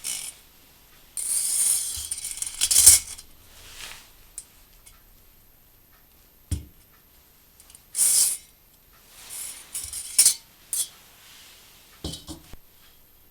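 Homemade wire pot-hanger clinking and rattling against metal cookware as it is handled and fitted. The rattling comes in several bursts, the longest in the first few seconds, with a couple of short dull knocks between them.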